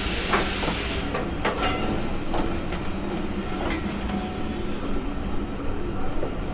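Passenger carriages of a steam-hauled train rolling past, their wheels clicking irregularly over rail joints over a steady rumble. A hiss stops about a second in.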